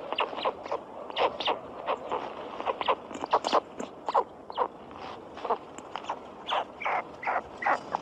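Birds calling: many short calls in quick, irregular succession over a steady hiss.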